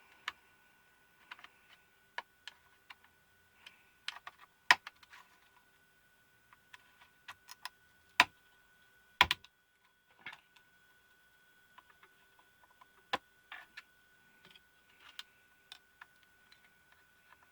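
Plastic case of a pico projector being pried open with metal shims: irregular sharp clicks, scrapes and snaps of the shims and the case's clips, the loudest about five, eight and nine seconds in.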